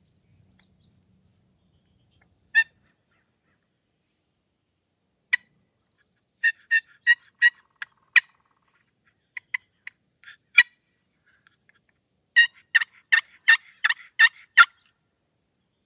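Turkey yelps: short, sharp single notes, a run of four about three a second around the middle, and a longer run of about seven near the end, the series a hen uses to call to gobblers.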